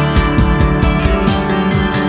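Background music with drums keeping a steady beat under sustained melodic instruments.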